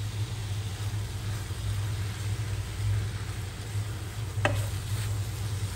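Mutton keema, onions and tomatoes sizzling in a stainless-steel pan as they are stirred with a wooden spatula, over a steady low hum. One short clink about four and a half seconds in.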